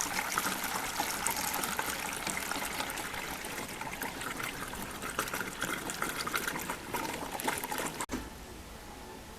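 Windshield washer fluid spraying and splashing on a Toyota Prius windshield, a steady crackling hiss that drops to a quieter hiss about eight seconds in.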